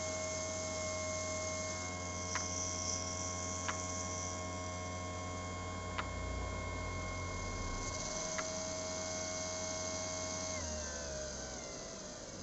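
Small brushed DC motor whining steadily at speed, spinning a diametrically magnetized ring magnet that drives a Halbach-array rotor on a ceramic ball bearing without contact. Four sharp clicks come through, and near the end the whine falls in pitch as the motor slows.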